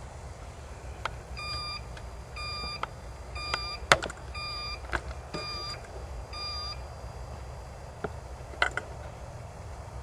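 An electronic beeper sounding six times, about once a second, each beep about half a second long and steady in pitch. A few sharp clicks fall among and after the beeps, the loudest about four seconds in.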